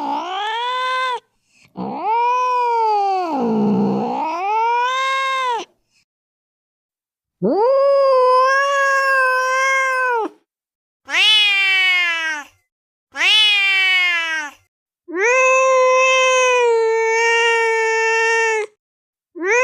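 Angry cat caterwauling: about six long, drawn-out yowls, each swooping up and down in pitch and some lasting three to four seconds, cut apart by sudden silent gaps.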